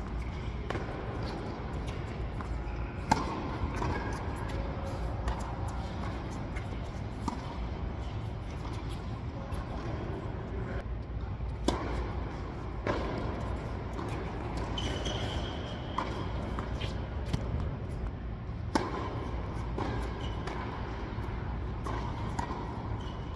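Tennis ball being hit back and forth with rackets during a doubles rally on an indoor hard court: sharp pops of ball on strings, spaced a second or more apart, over a steady low hum of the hall.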